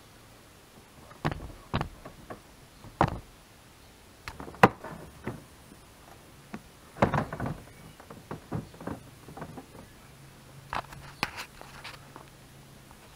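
Plastic knocks and clacks of a Ford Focus MK2 headlamp unit being slotted and pressed back into its mounting: a dozen or so irregular hits, the loudest about a third of the way in and a quick cluster about halfway.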